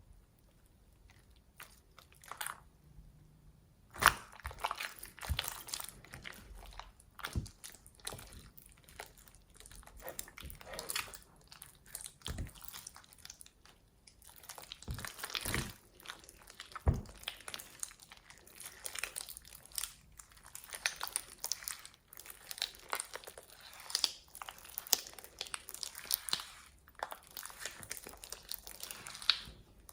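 Close crinkling and crunching from hands working slime and its ingredients: a few separate clicks, then from about four seconds in a dense, irregular run of crackles and clicks.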